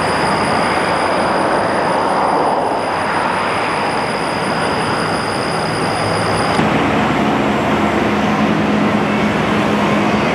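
Steady rushing noise. About six and a half seconds in it changes suddenly, and a small single-engine propeller plane passing overhead drones in a steady low tone.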